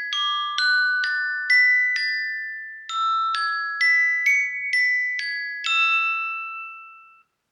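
An iPhone ringtone: a quick melody of bright, bell-like mallet notes, about two a second, with one note held about two seconds in before the phrase comes round again. The last note, about six seconds in, rings on and fades out.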